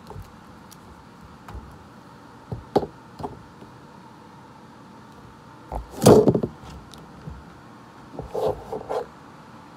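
Objects being handled: scattered light knocks and clicks, with a louder clatter about six seconds in and a short run of knocks near the end.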